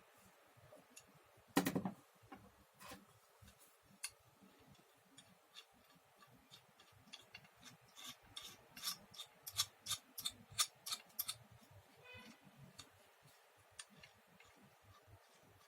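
Router plane being handled: scattered clicks and small knocks of metal parts. There is one sharper knock about a second and a half in, and a quick run of clicks, about three or four a second, from about eight to eleven seconds in.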